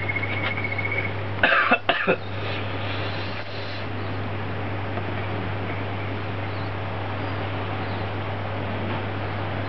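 A man coughs in a short harsh burst about a second and a half in, his mouth and throat burning from a whole habanero chilli just eaten. Before it, a thin high steady tone stops about a second in, and a steady background hiss runs under both.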